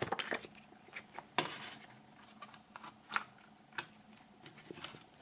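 A plastic CD jewel case and its paper booklet being handled: a scattered series of light clicks and taps, the sharpest about a second and a half in.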